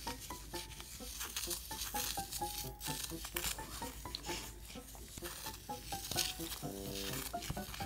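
Wooden chopstick stirring and scraping granulated sugar in a small copper dalgona ladle over a burner flame, a quick run of light scrapes; the sugar has not yet melted.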